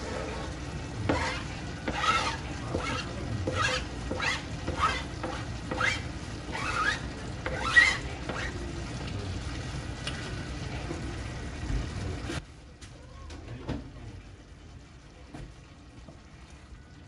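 Food sizzling in a pan while being stirred, with a scraping stroke about once a second. The sizzle stops abruptly about twelve seconds in, leaving only a few faint clicks.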